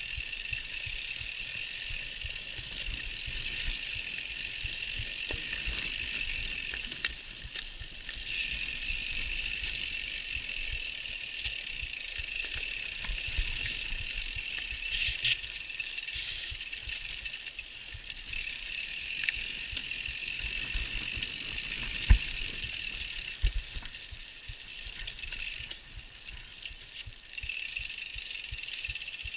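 Mountain bike rolling fast down a dirt singletrack: steady tyre and rolling noise with the bike rattling over the rough ground and sharp knocks from harder hits, the loudest about 22 seconds in.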